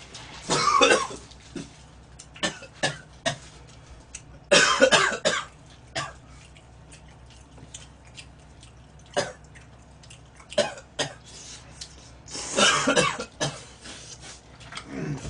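A man coughing loudly three times, in harsh bursts of about a second each. Between the coughs come short clicks of chopsticks and utensils against plastic food trays.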